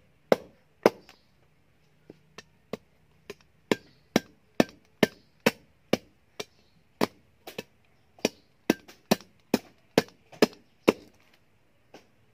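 Meat cleaver chopping ripe palm fruit on a round wooden chopping block: a steady run of sharp chops about two a second. They are lighter for a moment about two seconds in and stop about a second before the end.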